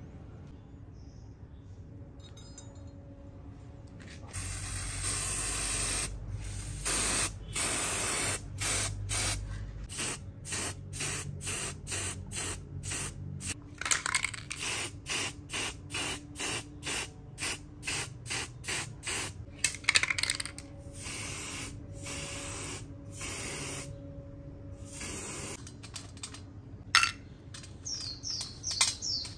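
Aerosol spray paint can hissing as it coats a tattoo machine frame white: a few longer sprays, then many short bursts about two a second. Near the end, a few sharp clinks of small metal screws in a steel tray.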